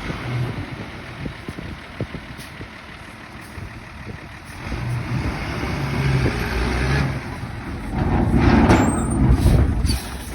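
Dump truck engine running, growing louder from about halfway through and loudest near the end.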